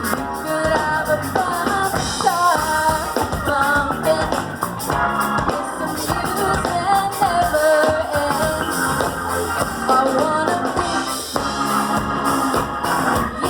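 A live rock band playing: a singer's melody over drum kit and guitar.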